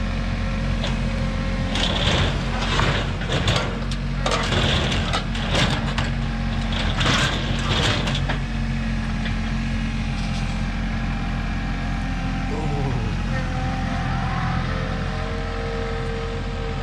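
A tractor engine runs steadily under load. From about 2 to 8 seconds in there are loud, irregular bursts of scraping and grinding as the boat hull drags across the metal trailer. About 13 seconds in, the engine note drops.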